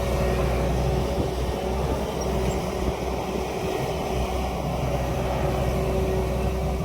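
Tracked excavator's diesel engine running steadily under work: a constant low drone with a steady whine above it.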